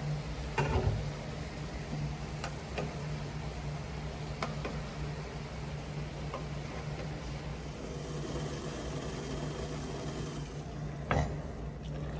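Cooking in a pan: a steady low hum with a few scattered clicks and knocks of a utensil against the pan, the loudest knock near the end.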